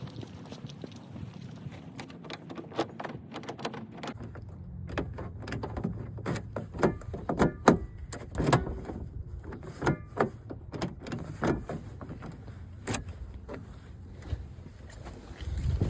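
Irregular run of sharp metallic clicks, taps and key jingles from a locksmith's keys and tools working at a car, busiest in the middle of the stretch, over a low steady hum.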